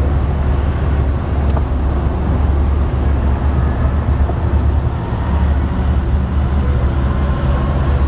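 Steady low rumble of road traffic mixed with a Metrolink commuter train passing on an elevated track.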